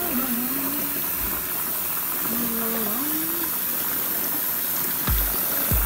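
Bath tap running, a steady rush of water pouring into a bathtub full of bubble-bath foam. Twice in the first half a faint low wavering tone rises and falls over the rush, and a few low bumps come near the end.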